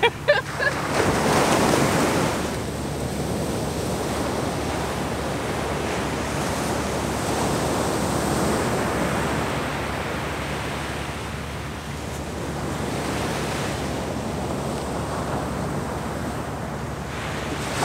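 Ocean surf washing onto a sandy beach, with wind on the microphone. The wash swells louder about a second or two in, then runs steady.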